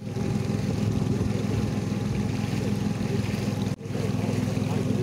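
A small boat's engine running steadily under way. It breaks off for an instant a little before four seconds in, then carries on unchanged.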